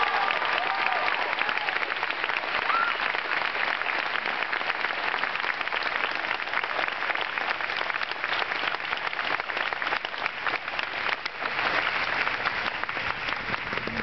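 Audience applauding steadily after a choir song, with a few whoops in the first three seconds.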